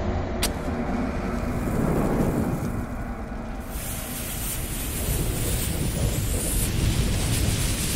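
Sound effects for an animated logo intro: a steady low rumble, a sharp click about half a second in, and a sizzling hiss of a lit bomb fuse burning from about three and a half seconds to nearly seven seconds in.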